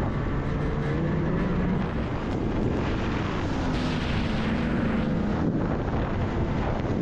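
Snowmobile engine running at speed, with wind and snow rushing past. A second snowmobile comes up close alongside about four seconds in, and the engine sound and rushing noise swell briefly.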